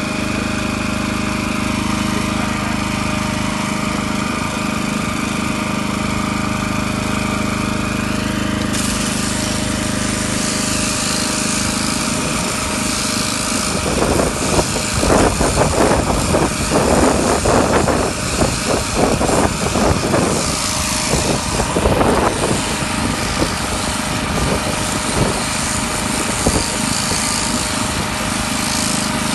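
Electric shearing handpiece running with a steady buzz while shearing llama fleece. For several seconds around the middle it grows louder and uneven, with rapid irregular rasping.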